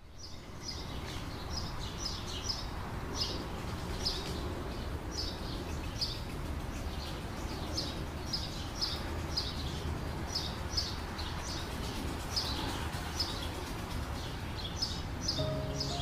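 Small birds chirping: short, high calls repeating about once or twice a second over a steady low outdoor background noise. A few music notes come in near the end.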